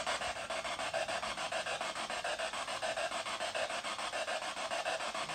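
A spirit box sweeping through radio stations: rapid, even chops of static from its small speaker, about five a second.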